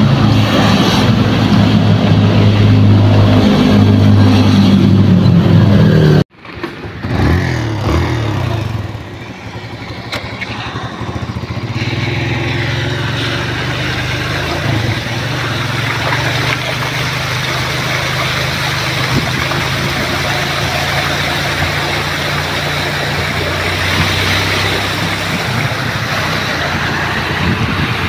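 A motorcycle engine runs loudly and steadily, then cuts off abruptly about six seconds in. After that a quieter engine hum continues under a steady rush of wind on the microphone and water noise as the motorcycle rides through floodwater.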